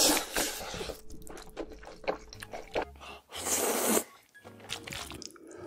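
Close-miked mukbang eating sounds: slurping and chewing of jjajangmyeon, black bean sauce noodles. Wet mouth noises and small clicks, with louder stretches at the start and about three and a half seconds in.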